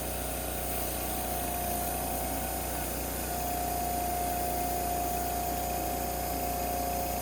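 Power Horse 3200 psi gas pressure washer running steadily, engine and pump droning with a steady whine that strengthens about three seconds in.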